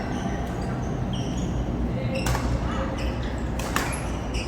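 Rackets striking an Aeroplane goose-feather shuttlecock in a badminton rally: sharp cracks twice, about a second and a half apart, over a steady low hum.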